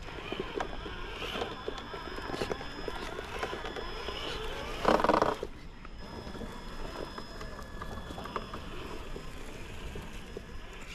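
Traxxas TRX-4 Sport RC crawler driving over rock: the whine of its electric motor and gears wavering with throttle, with scattered clicks and knocks of the tyres and chassis on stone. About five seconds in, a brief, louder burst of whine.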